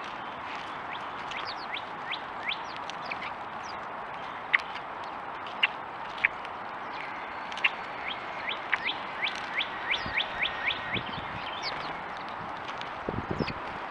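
House sparrows chirping at a seed pile: short chirps, scattered at first, then a quick run of about three a second a little past the middle, over a steady background hiss.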